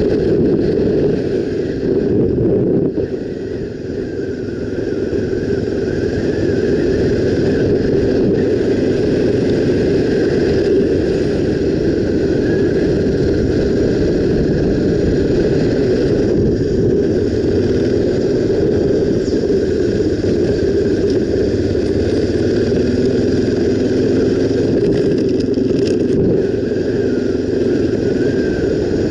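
Honda XR 250 Tornado motorcycle's single-cylinder four-stroke engine running steadily while riding, easing off briefly about three seconds in.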